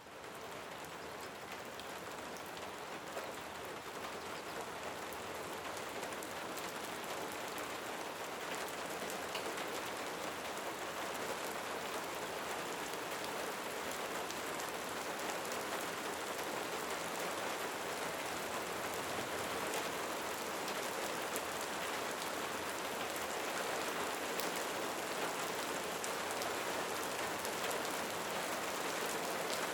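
Steady rain: a dense hiss of many drops falling. It fades in from silence right at the start and grows slightly louder over the next half minute.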